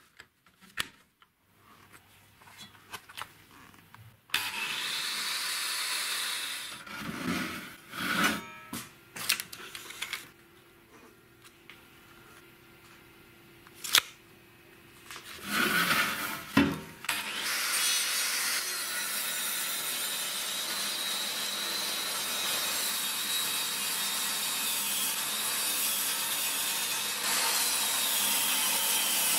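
Homemade table saw with an angle grinder driving its blade, ripping a thick wooden board lengthwise. From about 17 seconds in, there is a steady cutting noise with a high whine that sags and recovers as the blade takes the load. Before that come scattered knocks and handling clatter and a short steady run.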